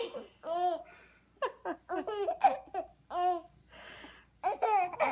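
A young baby laughing in a run of short, high-pitched giggles with brief pauses between them, and a breathy gasp about four seconds in.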